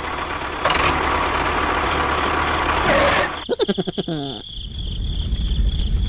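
Mini tractor's engine running steadily for about three seconds. Then comes a short, pulsing, pitched sound that falls in pitch, alongside a thin, high, steady whistle.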